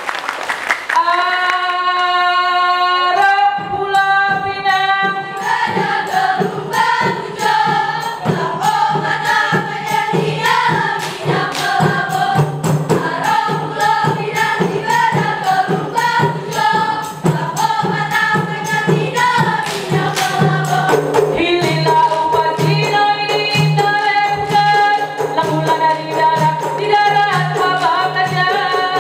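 Female voices singing a Ratoh Jaroe dance song in unison, with fast, even percussion beats that come in about three seconds in.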